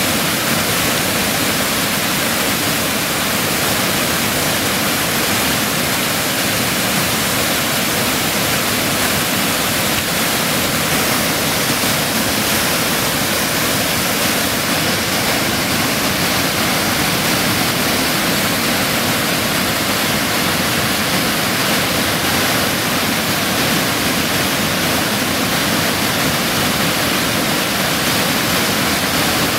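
Waterfall: white water pouring over rock ledges in a loud, steady rush.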